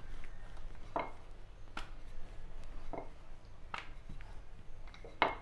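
Rolling pin rolling out paratha dough on a stone countertop, with about five light knocks as it is pushed back and forth.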